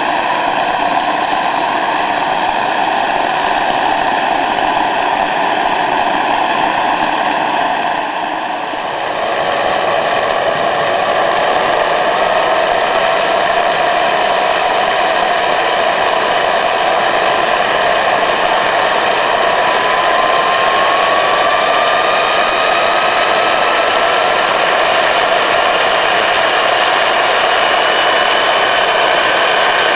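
The GR-5, a homemade twin-spool turboshaft gas turbine built around a turbocharger, is running with its propeller spinning: a loud, steady rush of air with a jet-like whine. After a brief dip about eight seconds in, the whine climbs slowly in pitch as the engine speeds up.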